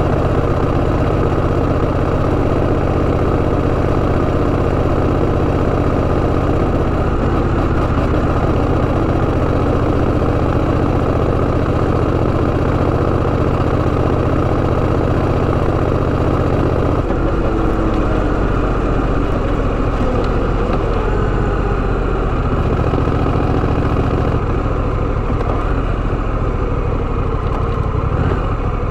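Honda Rebel 1100's parallel-twin engine running steadily, its sound changing about seventeen seconds in.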